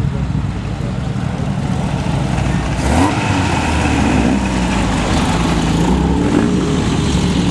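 Prewar racing car engines running and revving, the engine note wavering up and down. The sound grows louder about three seconds in.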